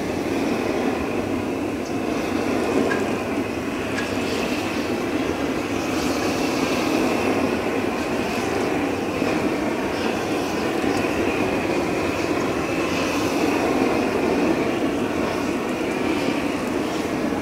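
Blowtorch flame burning with a steady, continuous rushing noise that does not change in level.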